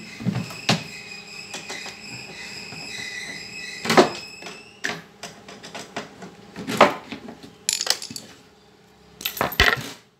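Screws, metal parts and panels of an amplifier clicking and knocking as its wooden side panels and cover are taken off, with a thin high whine for the first few seconds.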